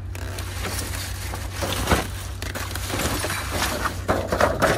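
Rummaging through discarded goods in a dumpster: irregular rustling, crinkling and clattering of items being moved and handled, with one sharp knock about two seconds in and a steady low hum underneath.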